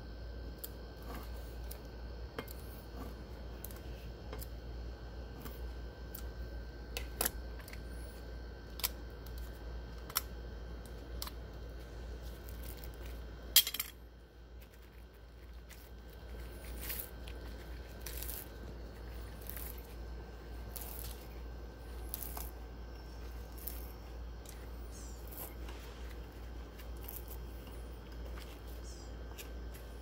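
Red-insulated copper wire being pulled through an STP-1000 manual wire stripper, its blades slitting the insulation: scattered light clicks and scrapes over a steady low hum, with one sharp snap about fourteen seconds in.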